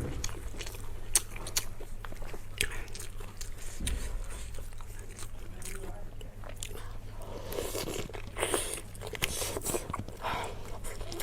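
A person eating close to the microphone: a run of bites and chewing with short clicks and crunches, busiest a couple of seconds before the end, over a steady low hum.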